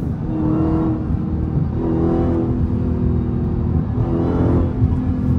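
Dodge Hellcat's supercharged V8 heard from inside the cabin, running under load with its pitch rising in three surges as the car accelerates.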